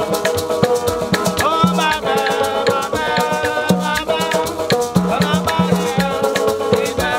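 Small acoustic band playing an upbeat song: a strummed banjo and acoustic guitar, a shaker keeping a steady beat, and a repeating low bass line, with a man singing over it.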